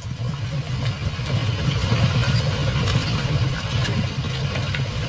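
Buffalo herd running: a steady low rumble of pounding hooves, with splashing and scattered clatter as they charge through shallow water.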